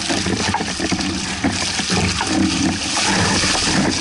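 Water rushing and splashing along the hulls of a Hobie 16 catamaran under sail in choppy waves.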